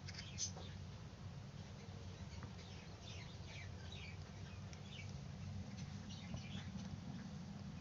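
Faint peeping of a chick still inside its egg under a brooding hen: short, high, falling cheeps scattered throughout, the sign that the chick is ready to hatch. A low steady hum runs beneath.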